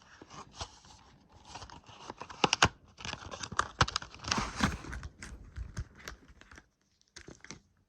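A plastic phone case being handled: a string of irregular sharp clicks and taps with some crinkling rustle. There is a short pause near the end.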